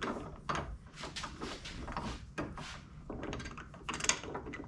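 Irregular clicks, taps and light knocks, several a second, from a 5-inch round convex mirror and its cage mount being handled and positioned by hand.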